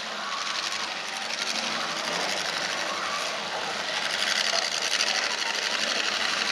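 Several demolition derby cars' engines revving hard at once, a dense, fast exhaust rattle that grows louder about four seconds in.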